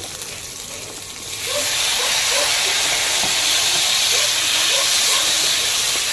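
Tomato going into hot oil with sautéing onion, garlic and ginger: the frying sizzle jumps up loudly about a second and a half in and then holds steady.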